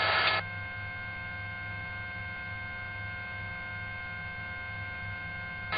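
Steady electrical hum with a few faint steady tones on the helicopter's radio audio feed, which sounds narrow and thin. A brief hiss at the start cuts off about half a second in.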